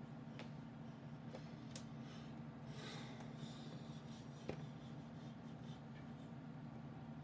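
Faint taps and a short rustle from a cat's paws striking and rubbing a computer monitor screen, the sharpest tap about four and a half seconds in, over a steady low hum.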